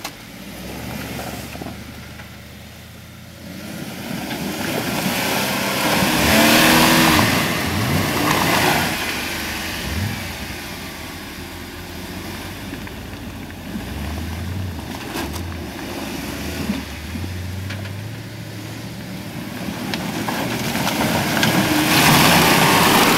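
Jeep Wrangler's engine revving in surges as it churns through a deep mud rut, the revs rising and falling, with a rush of tires and mud on top. It is loudest about six seconds in and again near the end.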